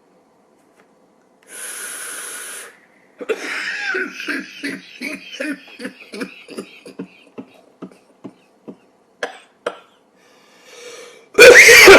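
A person's coughing fit: a breathy hiss, then a run of short coughs that grow weaker and further apart, and a much louder burst of hacking near the end. It follows a deep lung hit, which sets off the coughing.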